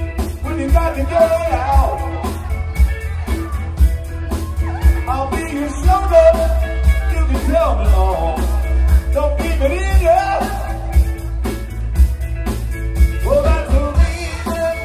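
Live rock band playing a song with sung vocals over a drum kit, keyboard and guitar, with a heavy, steady low end and frequent drum hits.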